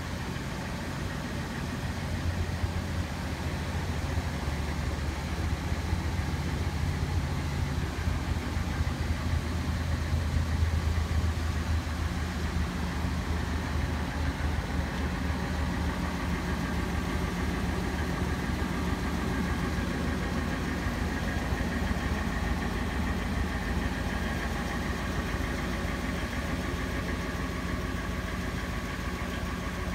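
A 2000 Ford 15-passenger van's Triton V8 engine idling steadily.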